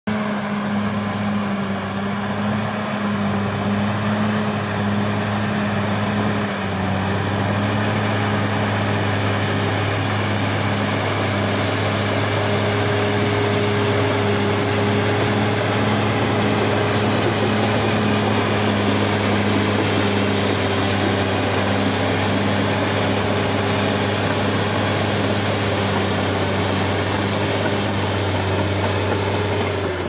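Caterpillar D6R XL bulldozer's diesel engine running steadily under load as the dozer pushes dirt, with a steady higher whine over it for much of the time.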